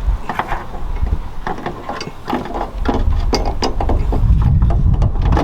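Irregular metallic clicks and clanks of hand tools and suspension hardware, with a low rumble underneath that is heavier near the end, as a coilover is fitted into the front strut tower and its top nuts are started.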